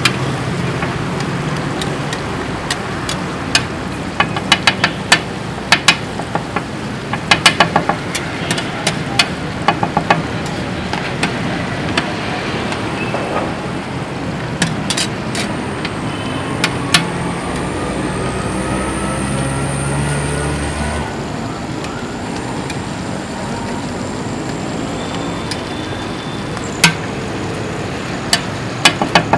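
Metal spatula clanking and scraping on a large iron tawa as liver is stir-fried, in quick runs of sharp clinks, over a steady hiss of frying. A motor vehicle's engine rises in pitch in the background for several seconds in the middle and cuts off suddenly.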